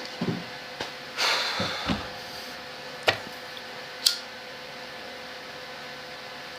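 Rummaging through electronic parts stock: a short rustle about a second in, then two single sharp clicks a second apart, over a steady electrical hum.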